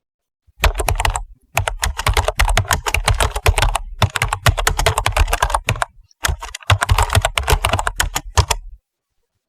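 Fast typing on a computer keyboard: a dense run of key clicks in several spells, with short pauses between them.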